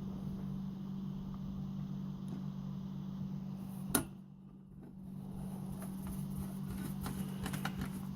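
Small metallic clicks and ticks of a screw being driven to re-secure a metal hard-drive bracket in a computer case, over a steady low hum. There is one sharp click about halfway through and a run of lighter ticks near the end.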